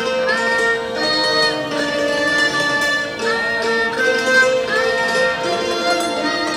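Traditional Thai music: a Thai bowed fiddle (saw) carries a sliding, bending melody over a khim struck with mallets and other accompanying instruments.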